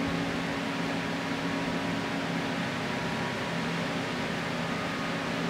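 Steady mechanical hum with an even hiss: room tone of the workshop.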